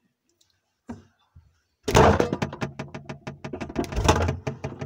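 Rapid clattering and knocking at a refrigerator: a soft click, then a quick run of sharp knocks and thuds as things in the fridge are moved and the door rattles.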